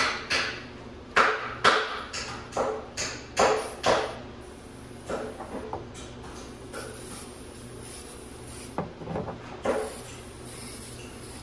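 Stiff-bristled brush scrubbing a textured fiberglass non-skid boat deck, working adhesive remover into it to lift old spray adhesive. Brisk strokes come about two to three a second, ease off midway, and pick up again near the end.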